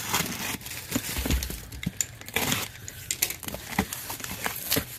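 An orange box cutter slitting the packing tape on a cardboard box, then the cardboard flaps being pulled open. It sounds like a string of sharp clicks, scrapes and crinkles.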